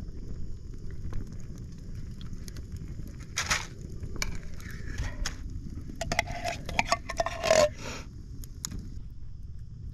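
Refried beans being scraped out of a tin can onto tortilla chips in a cast-iron Dutch oven: scattered scrapes and clinks of metal, busiest about six to eight seconds in.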